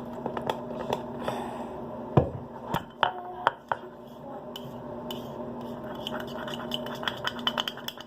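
A utensil clinking and knocking against a bowl while a soap-and-salt slime mixture is stirred, in scattered sharp knocks, the loudest about two seconds in and a quick cluster around three seconds.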